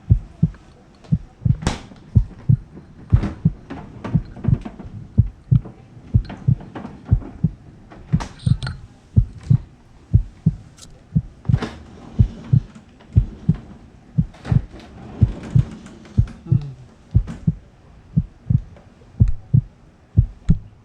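A steady low heartbeat-like thump, about two beats a second, laid under the scene as a suspense backing track. Over it come a few sharp clicks and knocks of handling, the loudest a couple of seconds in, others around the middle.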